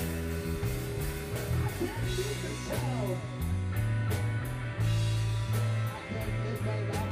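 Live rock band playing an instrumental passage without vocals: electric guitars over a drum kit, with a lead line of sliding, bending notes and steady cymbal hits.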